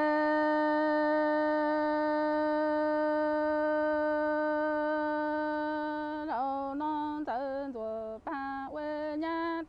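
A woman singing unaccompanied in Hmong sung-poetry style. She holds one long, level note for about six seconds, then breaks into a run of short syllables that step down and up in pitch.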